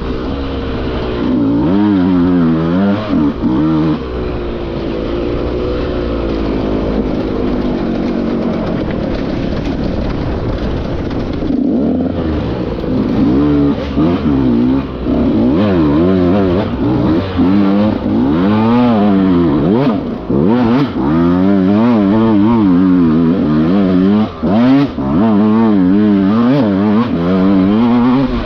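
Hard enduro dirt bike engine heard from on the bike, revving up and down in quick throttle bursts with a few short drops.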